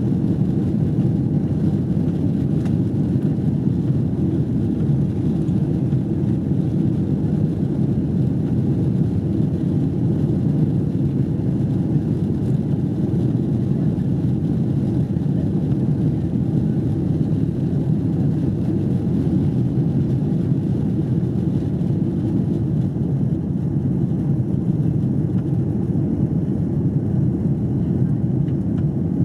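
Steady low engine and airflow noise of an Airbus A330 heard inside the passenger cabin during the climb after takeoff.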